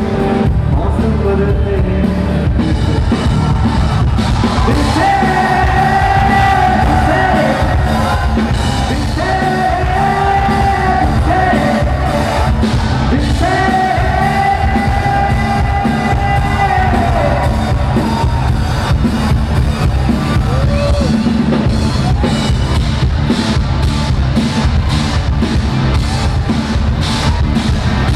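Live song played loud through a PA: a singer holds long notes three times over a drum kit and bass, with some shouting.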